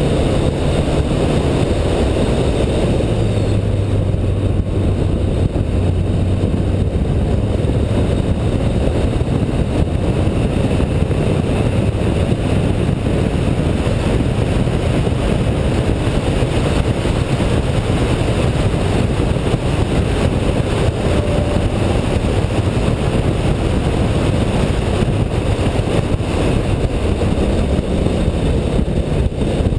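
Car running at speed around a race track: a steady, loud rumble of engine, tyre and wind noise on a camera mounted outside the car. The engine note steps lower a few seconds in.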